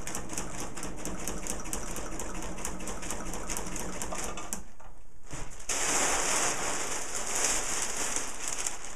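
Sewing machine running, its needle stitching rapidly through the layered kite fabric with an even clicking over a steady motor hum, stopping about four and a half seconds in. After a brief pause comes a steady hiss of the kite fabric rustling as it is handled and shifted.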